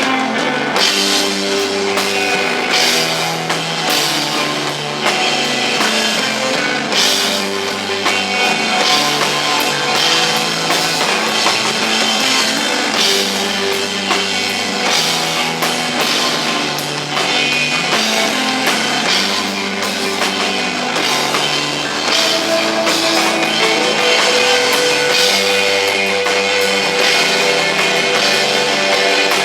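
A live instrumental rock band playing: electric guitar holding sustained notes over a bass line that changes every second or two, with a drum kit keeping up a steady cymbal wash.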